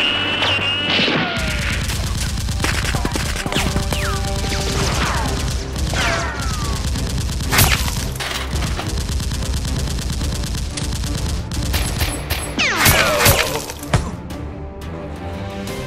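Sound-effect automatic gunfire in rapid sustained bursts, with bullet ricochet whines falling in pitch, over background music. The firing stops about fourteen seconds in.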